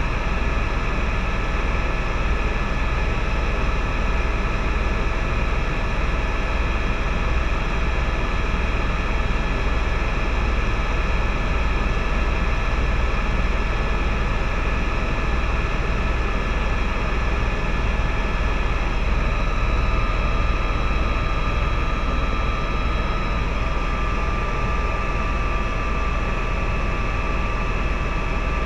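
Tour helicopter in flight, heard from inside the cabin: the turbine engine and rotors make a steady, loud drone with a deep low-end rumble and several fixed whine tones. About two-thirds of the way through, an extra higher whine joins in and drifts slightly in pitch.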